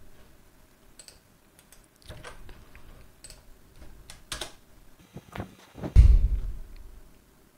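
Computer keyboard keys clicking in scattered strokes as a terminal command is entered, with one heavier thump about six seconds in as the command is run.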